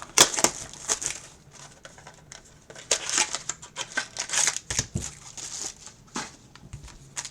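Crinkling and tearing of packaging as a trading card box and its wrapper are opened, with irregular rustles and small clicks of cards being handled.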